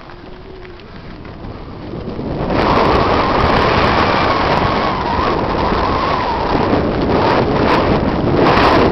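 Wind buffeting a helmet-mounted camera's microphone, with tyres rolling over a dry dirt trail, as a mountain bike picks up speed downhill. It builds over the first two to three seconds to a loud, steady rush.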